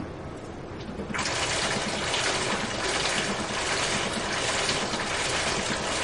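Water from a digital waterfall falling and splashing. It starts abruptly about a second in and runs on as a steady rush with faint uneven pulses.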